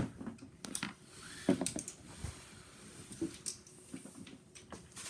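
Plastic dinosaur toy figures being handled and set down, giving a few scattered light clicks and knocks.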